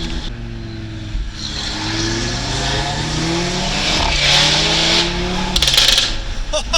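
Tuned Audi RS3's turbocharged five-cylinder engine accelerating hard, its note rising through the revs, with a gear change about four seconds in. Near the end the throttle closes and the exhaust fires a rapid burst of loud cracks and pops, the gunshot-like overrun of a stage 3 tune.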